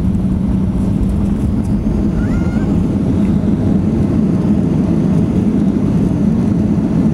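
Jet airliner cabin noise while the plane rolls along the runway just after landing: a loud, steady rumble of the engines and the rollout, with a steady low hum.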